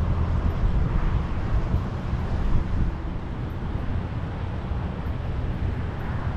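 Outdoor field noise dominated by a low, fluttering rumble of wind on the microphone, easing a little about halfway through.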